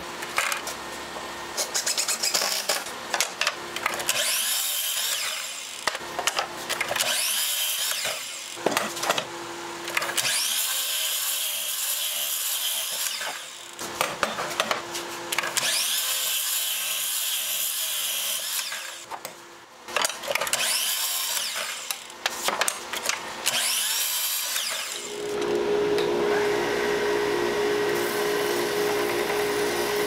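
Sliding compound miter saw with a fine-tooth blade whining up to speed and cutting through wood, about six cuts each lasting one to a few seconds. About 25 seconds in, a bench belt sander starts and runs with a steady hum.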